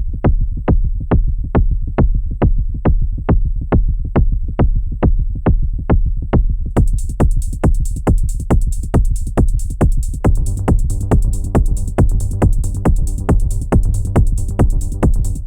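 Behringer Edge techno kick drum with a low rumble tail, playing a steady four-on-the-floor pulse of about two and a half beats a second. About seven seconds in, drum-machine hi-hats join, and about ten seconds in a synth bass line comes in underneath.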